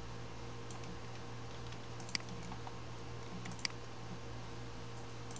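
Sharp computer clicks, two louder ones about two seconds and three and a half seconds in and a few fainter ones before, over a steady low electrical hum.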